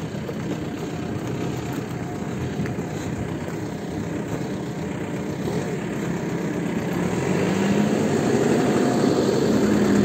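A motor vehicle's engine running steadily, growing louder from about seven seconds in as it comes closer.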